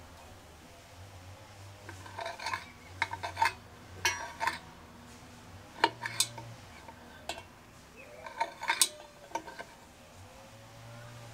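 Sharp metal clicks and clinks of a Dietz Monarch kerosene lantern's burner being worked into the fount's collar with a small screwdriver and gloved fingers. They come in irregular clusters, starting about two seconds in and stopping shortly before the end.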